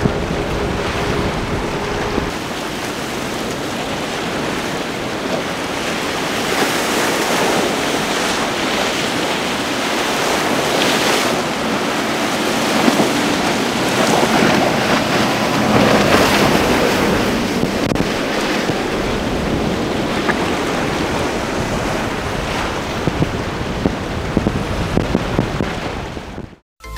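Motorboat wakes and choppy waves rushing and splashing, with wind buffeting the microphone; an outboard motor's drone is audible in the first couple of seconds. The sound fades out just before the end.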